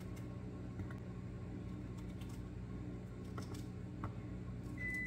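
A small knife slicing strawberries by hand, giving faint, scattered light clicks of the blade. A steady low hum runs underneath, and a short high electronic beep sounds near the end.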